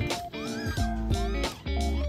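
Newborn Munchkin kitten mewing twice, short high cries that rise and fall, over background guitar music.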